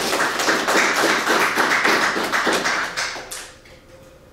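Audience applauding, a dense patter of many hands clapping that dies away about three seconds in.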